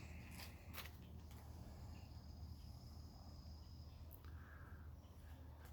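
Near silence: room tone with a steady low hum, a faint thin high tone for a few seconds in the middle, and a couple of faint clicks.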